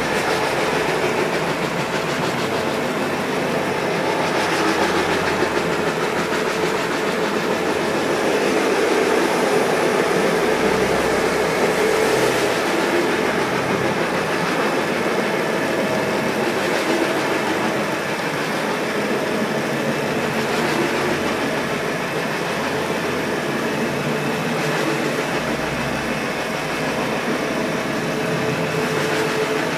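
Electric carpet scrubbing machine running steadily, its motor-driven brushes working through thick shampoo foam on a wool rug, the sound swelling and easing slightly as it is pushed back and forth.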